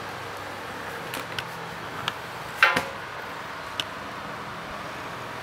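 An enamel plate being set down on newspaper over a tiled floor: a few light clicks and knocks, the loudest about two and a half seconds in with a short ring, over a steady background hiss.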